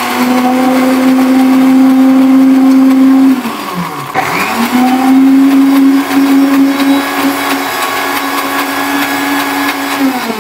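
Electric blender motor running at full speed, winding down about three and a half seconds in, starting again a moment later, and winding down again at the very end. This is pulsed, stop-start blending of a boiled-egg mayonnaise mixture, done in short runs to spare the motor.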